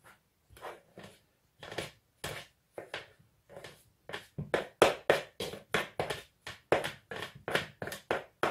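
A knife cutting margarine into flour in a plastic mixing bowl: a quick run of short strokes, about three a second, growing louder about halfway through.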